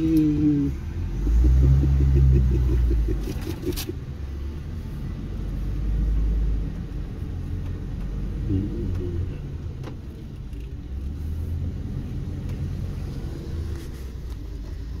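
Low rumble of a van's engine and tyres heard from inside the cabin as it drives slowly, rising and easing with the throttle. A short wavering higher-pitched sound comes right at the start and again about eight and a half seconds in.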